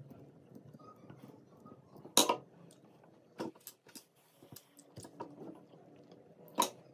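Small parts and a screwdriver being handled on a hard tabletop: faint scattered taps and clicks, with two sharp clicks, one about two seconds in and one near the end, the loudest.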